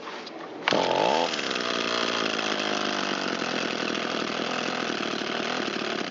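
Two-stroke engine of an Echo SRM225 string trimmer revving up suddenly about a second in and then running steadily at high speed while it warms up on a rich mixture. It stops abruptly near the end.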